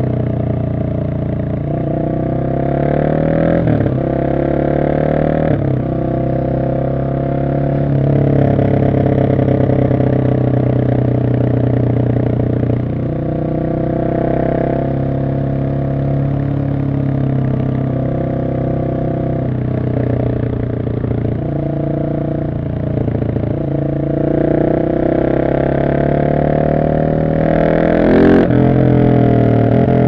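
Husqvarna 701 SM's single-cylinder engine through an Arrow exhaust with the catalyst removed and the dB killer fitted, accelerating hard. The revs rise and drop back at each gear change, several times over.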